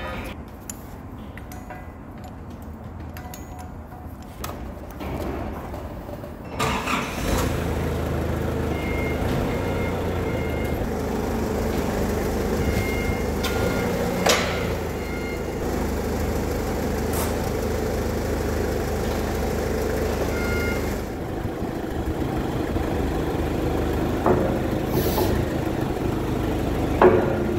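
Forklift engine running steadily, getting louder about six seconds in and staying at that level.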